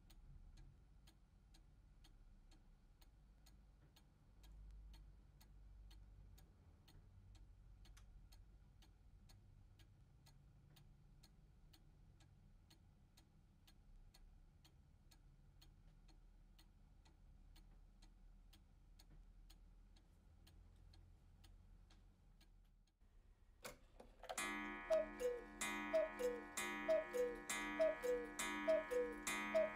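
Hones chalet cuckoo clock ticking steadily, about two ticks a second. Near the end its movement clicks and the cuckoo starts calling its two-note 'cu-ckoo' over and over, about once a second, as the clock strikes the hour.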